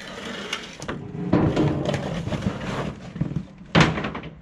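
Wooden pallet scraping and knocking on a concrete floor as it is pulled from under a tipped power-barrow skip, with one sharp, loud knock near the end.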